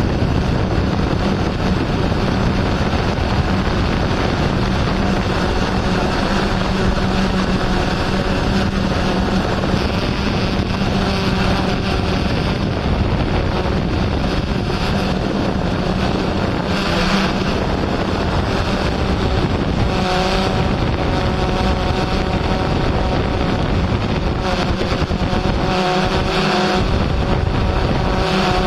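Drone's electric motors and propellers buzzing steadily, a constant hum with higher tones that shift slightly in pitch now and then. Several brief gusts of wind hiss on the microphone.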